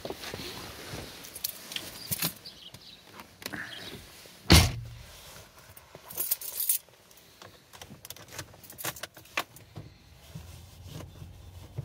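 Someone getting into a Mazda 6 with the engine off: rustling, keys jangling and clicking in the ignition, and a heavy thump about four and a half seconds in as the driver's door is shut. Near the end a faint steady low hum comes in as the ignition is switched on, before the diesel is started.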